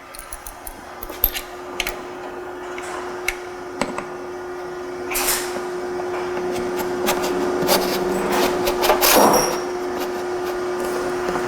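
Clicks, knocks and scrapes of metal parts being handled as the seat post is slid back into an electric bike's frame and its clamp fitted, with two longer scrapes about five and nine seconds in. A steady hum runs underneath.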